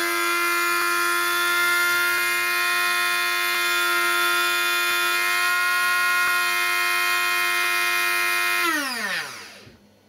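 Electric coffee grinder's motor running at a steady high whine, then switched off about nine seconds in and spinning down with a falling pitch.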